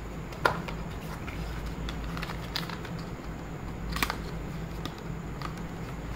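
Hands handling a small white cardboard box and its cardboard inserts: light scraping and rustling with a few sharp taps, the clearest about half a second in and about four seconds in, over a steady low hum.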